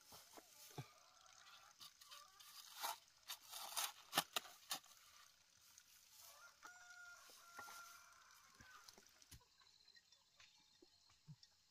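Faint rustling and a few soft knocks as bundles of rice seedlings are lifted and handled, loudest a few seconds in. A brief animal call follows in the middle.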